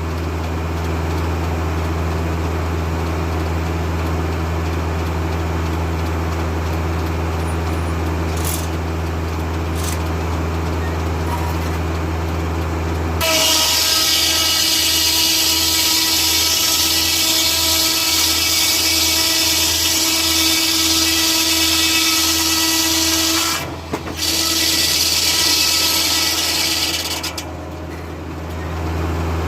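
Foley-Belsaw circular sawmill driven by a Kubota tractor, the engine running with a steady hum and the blade spinning free. About halfway through, the blade bites into an oak log and the cut goes on loud, with a whining ring, for about fourteen seconds, briefly easing once. Near the end it drops back to the engine and the freewheeling blade.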